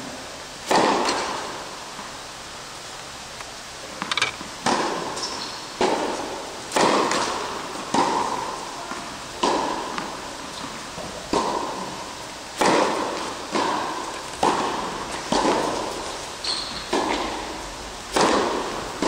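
Tennis ball struck by a racket and bouncing on an indoor court, each hit a sharp pop with echo in the hall. A serve lands less than a second in, then hits and bounces come about once a second, with another serve near the end.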